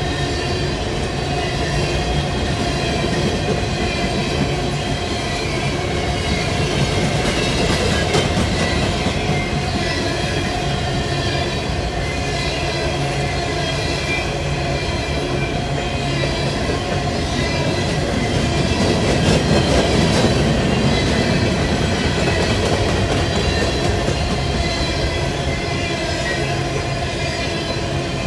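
Freight train of CSX coal hopper cars rolling past at close range: a steady rumble of steel wheels on rail with rattling car bodies, swelling a little about two-thirds of the way through.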